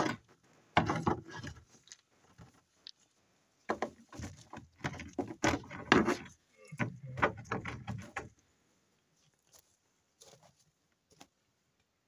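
Irregular clanks, clicks and knocks of metal wheel parts and tools being handled while fitting a forwarder wheel, in two bunches with quiet gaps.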